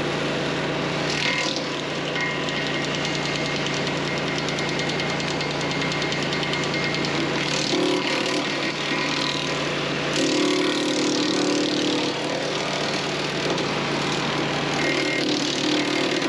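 DR wood chipper attachment, driven by the engine of a DR XL Pro power unit, running steadily while branches are fed through. The chipping comes in patches of rougher, noisier sound, strongest about 8 s in, from about 10 to 12 s, and near the end.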